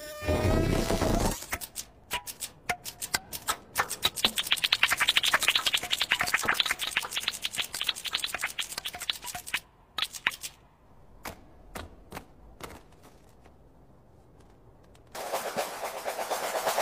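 Cartoon insect sound effects: a low thump at the start, then a long run of rapid clicking and scratching that thins out to scattered clicks, and a steady hiss coming in near the end.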